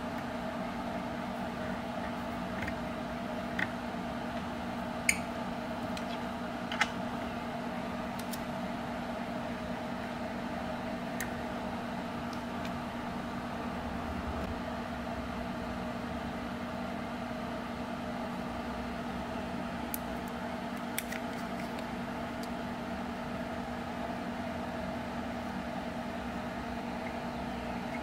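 Steady, even hum of a running room appliance or fan, with a few short light clicks about four, five and seven seconds in and again near twenty seconds.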